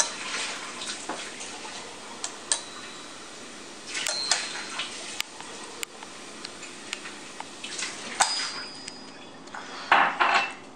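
Small plastic clicks and taps as a toy makeup set's applicator and pots are handled, scattered and irregular, with a few short thin high tones. A louder burst of noise comes near the end.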